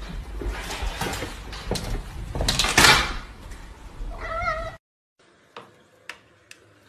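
Noisy rustling and knocking, loudest a little under three seconds in, then a cat gives one short wavering meow about four seconds in. The sound then cuts off, leaving a few faint sharp clicks.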